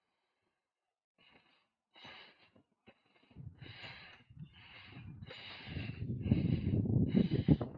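A cyclist breathing hard while pedalling uphill: quick, even huffing breaths a little more than one a second, starting about two seconds in. A low rumble builds underneath them from about three seconds in and is loudest near the end.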